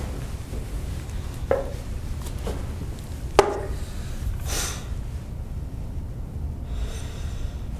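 Steady low room hum with a few light knocks and handling rustles. The sharpest knock, about three and a half seconds in, fits a plastic drinking cup being set down on a table.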